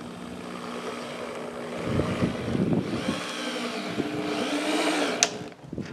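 Corded DeWalt drill driving a screw into pallet-wood boards, the motor whine rising and falling in pitch as the screw goes in. It stops a little after five seconds with a sharp click.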